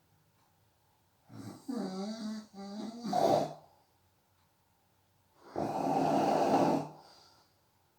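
A person snoring in their sleep. It starts with a pitched, broken snore lasting about two seconds, then a pause, then a rougher, breathy snore of about a second and a half.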